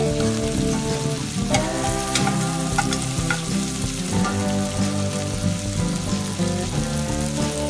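Rockfish fillets sizzling as they fry in a cast-iron skillet, with a few sharp crackles, and a slotted metal spatula scraping and pressing in the pan now and then.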